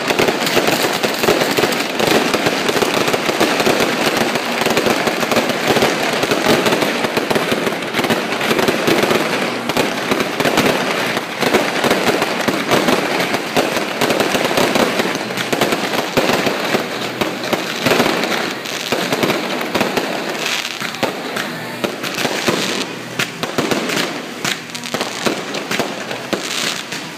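Fireworks and firecrackers going off in a dense, continuous crackle of many overlapping bangs, thinning a little near the end.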